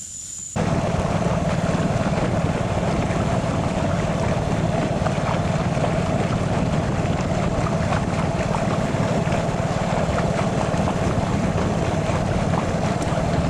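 An insect trill is cut off about half a second in by the steady running of a boat's engine, with wind blowing on the microphone as the boat moves.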